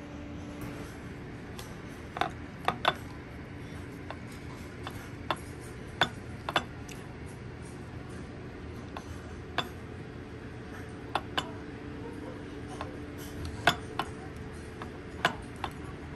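Wooden chopsticks and tableware clicking and clinking against porcelain dishes, about a dozen short sharp knocks at irregular intervals, over a steady low room hum.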